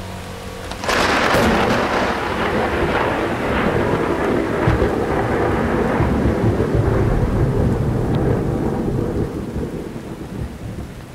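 Thunderstorm sound effect from the piece's forest soundscape: a sudden thunderclap about a second in, then a long rumble over steady rain that slowly dies away near the end.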